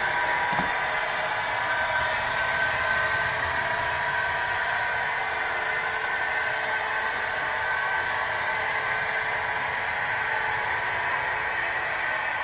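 Märklin model electric locomotive running along the track: a steady whirring hum with a faint wavering whine.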